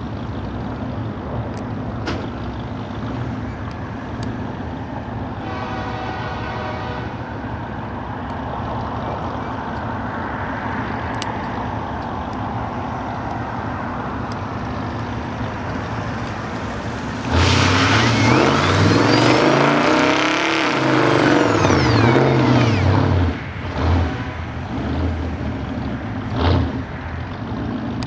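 A 1935 Ford ratrod dually's 350 small-block V8 idling steadily, then revved hard for about six seconds a little past the middle, its pitch sweeping up and down, before dropping back to idle with a few short throttle blips near the end.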